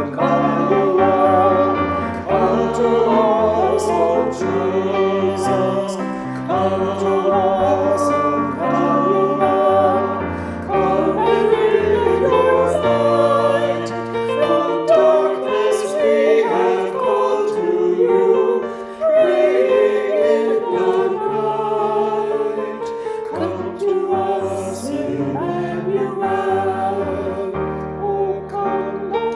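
Choir singing an Advent hymn with instrumental accompaniment, sustained bass notes under wavering voices.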